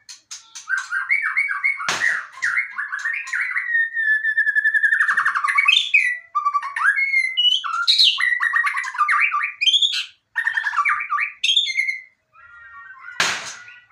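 White-rumped shama singing a fast, varied song of trills, whistles and chattering phrases, with a short break near the end. Two harsh, rasping bursts cut in, about two seconds in and shortly before the end.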